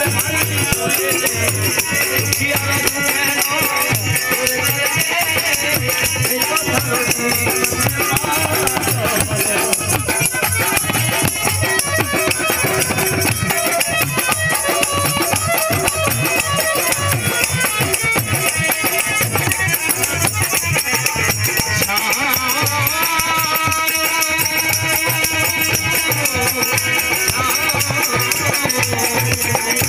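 Live Indian devotional folk music: a harmonium playing over dholak drumming, with a steady jingling rattle of small hand percussion. The drum beats and jingling keep an even rhythm throughout.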